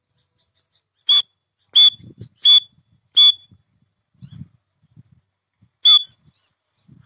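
Grey francolin (teetar) calling: four short, shrill, piercing notes in quick even succession, then a fifth near the end. These are the calls a hunter's decoy francolin makes to draw wild birds in. Faint low rustling sounds come between the calls.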